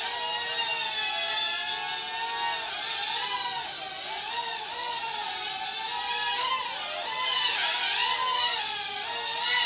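XK X100 mini quadcopter's motors and propellers whining, with several close pitches wavering up and down together as the throttle shifts in flight.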